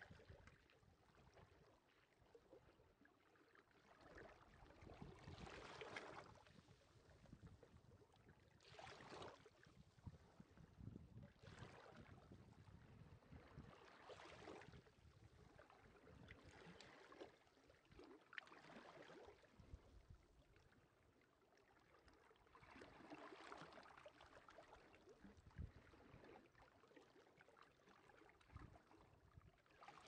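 Faint small sea waves washing up on the beach shore, each wash swelling and fading back, a few seconds apart and of uneven size.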